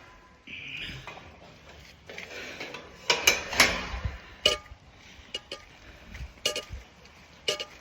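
A dog eating from a food bowl: irregular sharp clinks and rattles of kibble against the bowl, a quick cluster about three seconds in and then single clinks every second or so.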